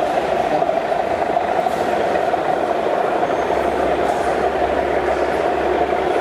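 Model railway trains running on the layout track, a steady rumble with no breaks, over hall chatter.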